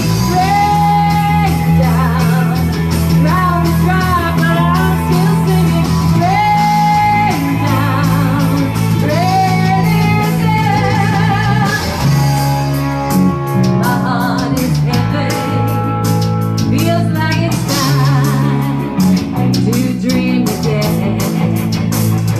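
A rock band rehearsing a Christian worship song live: a woman singing lead over electric guitars, bass guitar and drums. The singing is clearest in the first half, and the drumming grows busier about halfway through.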